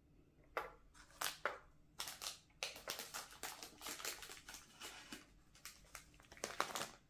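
Shiny foil candy wrapper crinkling and crackling as it is handled and opened. It comes in a quick, uneven run of crackles that starts about half a second in and stops just before the end.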